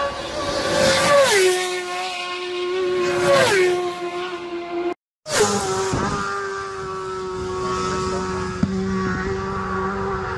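Racing motorcycles passing at high speed: two flash by with a sharp fall in engine pitch about one and three and a half seconds in. After a brief gap, another passes with a falling pitch, and an engine then holds a steady high note.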